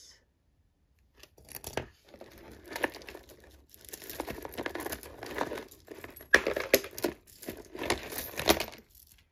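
A bag crinkling and rustling in bursts, starting about a second in, as hands rummage through tangled jewelry inside it.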